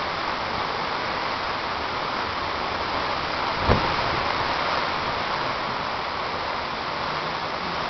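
Hurricane-force wind and driving rain make a steady rushing noise. There is one short sharp knock a little under four seconds in.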